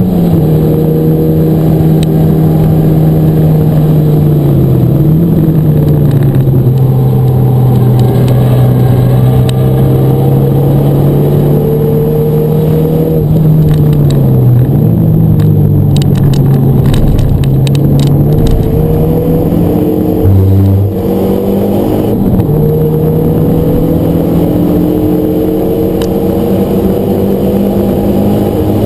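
Renault Mégane RS 250's turbocharged 2.0-litre four-cylinder engine heard from inside the cabin, pulling hard, its note shifting with gear changes a few times. A run of sharp clicks about halfway through.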